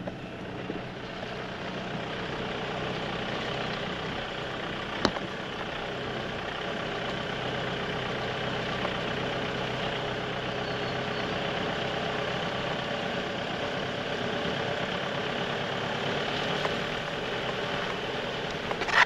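Toyota RAV4 running steadily as it drives along a grass field track, a low engine hum under road and tyre noise. There is one sharp click about five seconds in and a short louder knock at the very end.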